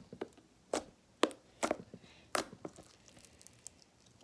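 Firm, clicky slime being squeezed and kneaded by hand, giving a series of sharp, irregular clicks and pops with fainter ticks between.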